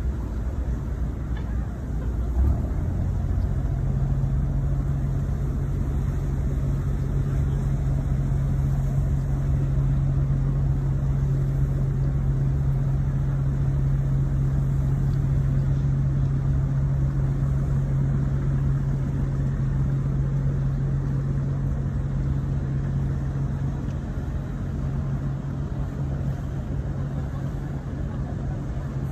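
Aqua Luna junk boat's engine running as the boat moves off, a steady low drone that settles into an even hum about three seconds in.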